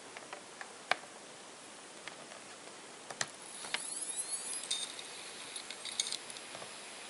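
Opened Fujitsu laptop hard drive running: a few faint clicks, then a faint rising whine a little under four seconds in as the platter comes up to speed. After that comes a steady high whine with clicks and ticks as the head arm leaves its parking ramp and seeks across the platter.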